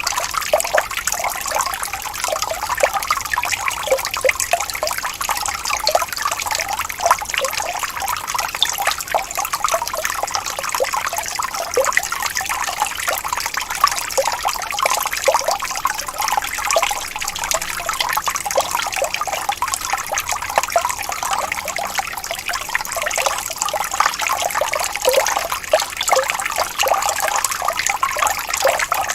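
Water trickling and splashing continuously, a dense patter of small gurgling drops and splashes over a steady rush, as from a small waterfall.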